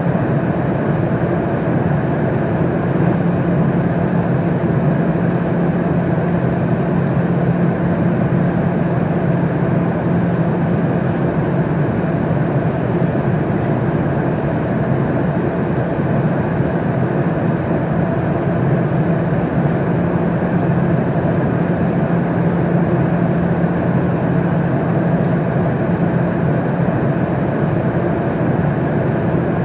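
Airliner cabin noise in flight: a steady, even rushing drone with a low hum running through it.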